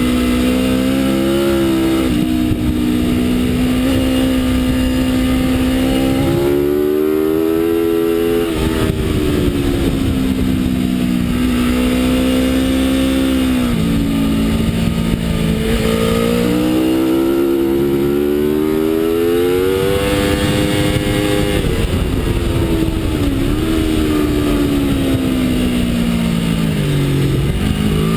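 Aprilia RSV4's V4 engine at speed on a race track, its note climbing as it pulls and dropping off several times as the revs fall.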